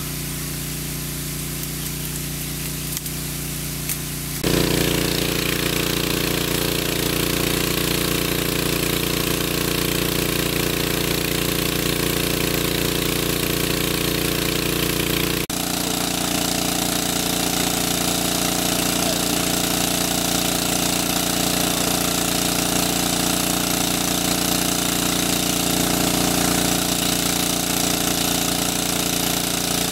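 A large-capacity motor-driven water pump running steadily, with water gushing from its outlet. It gets louder about four seconds in and changes tone about halfway through.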